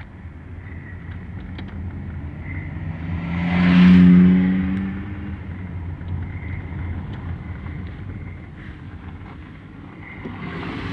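Car on the move, with steady engine and road noise heard from inside. About four seconds in, a louder swell of engine and tyre noise rises and fades over about two seconds.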